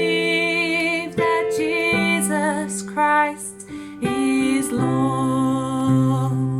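Worship song: a woman singing sustained notes with vibrato over electric piano accompaniment.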